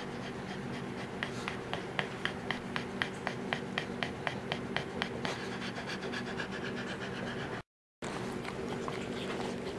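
Newborn puggle puppy suckling at its mother's teat, making a rhythmic run of small wet clicks, about four a second, that fades out after a few seconds over a steady low hum.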